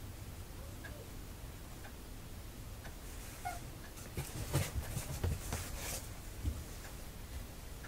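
Cardboard box rustling and bumping as two cats play-fight in and against it: a short cluster of scratchy scuffs and soft thumps about four to six seconds in, with quiet room tone around it.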